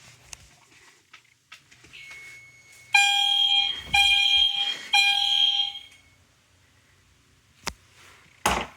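EST Genesis fire alarm horn sounding three short blasts, each just under a second long with a brief gap between them. This is the brief audible signal that a fire alarm panel in walk test mode gives when a device is activated.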